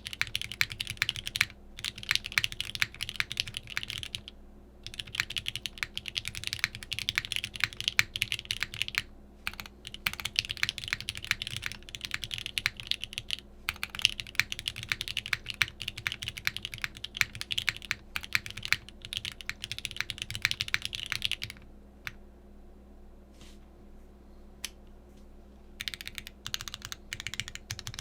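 Typing on a custom polycarbonate Bakeneko60 keyboard with lubed Gateron CJ linear switches on an aluminum plate: fast, steady runs of keystrokes. There is a short pause about four seconds in, and near the end a few seconds of only scattered keystrokes before fast typing picks up again.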